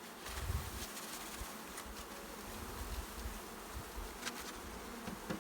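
A mass of honeybees buzzing steadily, with a dull knock about half a second in and a few faint clicks.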